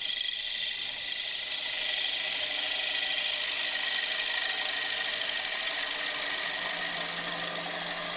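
A bowl gouge cutting into a large wooden bowl spinning on a lathe: a steady, loud shearing hiss as shavings peel off, from thinning the bowl's walls.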